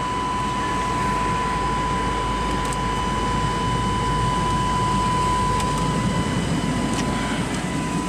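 Car's air-conditioning blower fan running on high at max AC, a steady rush of air with a constant thin whine through it, the engine running behind it.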